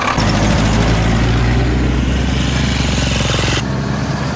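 GAZ-66 truck's engine running steadily under load as the truck pulls through snowy mud. Near the end the sound cuts abruptly to another vehicle's engine.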